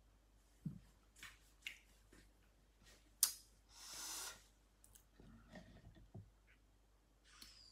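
Quiet room with scattered light clicks and taps, a soft breath-like rush about four seconds in, and small knocks from a plastic milk jug being taken hold of on the table toward the end.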